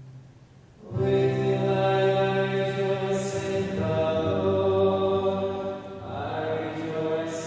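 A woman singing a slow, chant-like melody with long held notes, accompanied by acoustic guitar; the singing comes in about a second in after a short pause.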